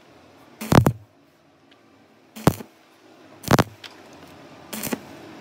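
Stick-welding arc struck in four short bursts about a second apart, each a brief crackle with a low hum, as weld metal is laid onto a worn, undersized brake caliper pin to build it back up to size.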